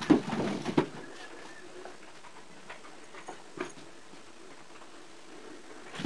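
A black cat scampering on a wooden floor and nosing among cardboard boxes. Several knocks and taps bunch together in the first second, then a few lighter ticks follow.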